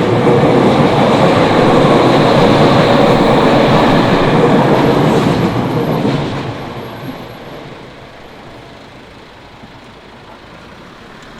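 Tokyu Oimachi Line electric commuter train passing over a level crossing: wheel and running noise loud for about six seconds, then fading away over the next two.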